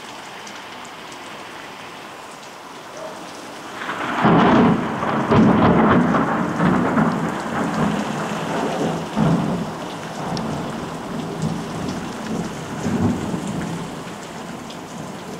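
Heavy rain falling steadily, broken about four seconds in by a close thunderclap that rolls on in several loud surges for about ten seconds before fading back under the rain.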